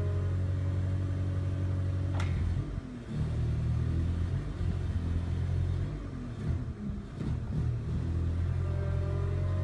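Linde H18T LPG forklift running with its hydraulics working the 180° box rotator attachment, a steady low engine hum that dips and wavers as the load changes. A short, sharp rising squeal comes about two seconds in.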